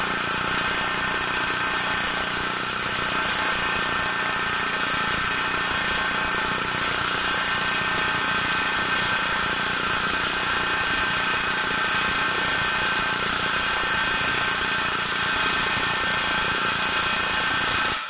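Boyer No. 1 pneumatic hammer driving a beading tool into a boiler tube end, a loud, rapid, unbroken hammering as the tool is steered round to flare the tube end out against the tube plate; it stops abruptly near the end.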